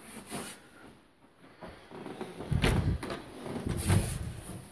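Interior closet door being swung open and pushed shut to test whether it closes, with scattered knocks and clicks and two heavier thuds late on.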